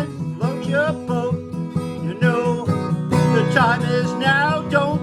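Country-style song with a strummed acoustic guitar and a melody line sliding in pitch above it.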